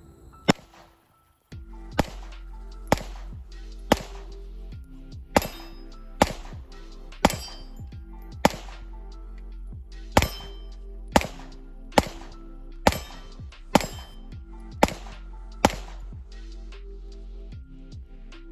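Pistol shots, about fifteen at a steady pace of roughly one a second, each with a short ringing tail, as the shooter empties the magazine; the firing stops a few seconds before the end. Background music plays under the shots.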